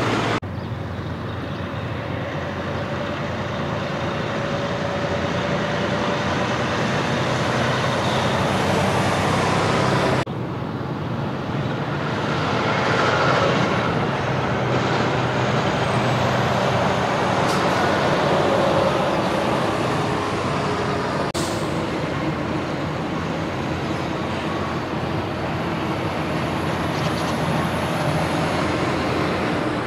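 Heavy diesel trucks, a semi tractor-trailer and a garbage truck, running and passing on the road, with a steady engine drone and road noise. The sound breaks off abruptly twice and picks up again.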